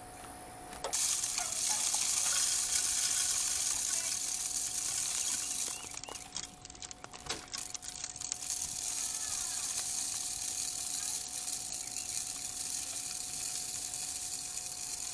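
Bird seed being poured into a hanging bird feeder: a steady hiss of streaming seed that starts about a second in, breaks off briefly around six seconds in, then carries on more softly.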